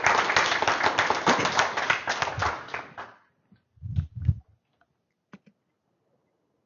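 A small audience applauding, a dense patter of hand claps that dies away about three seconds in, followed by two short low thumps.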